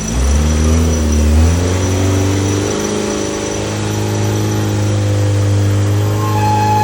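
Off-road Toyota Hilux's engine revving up under load, its pitch climbing over the first three seconds and then holding at steady revs. A steady high tone comes in near the end.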